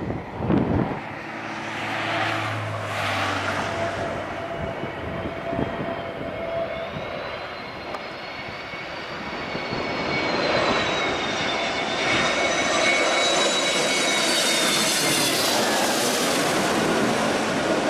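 Airliner engines running with a high whine that grows louder and bends downward in pitch as the aircraft passes. Wind buffets the microphone at the start.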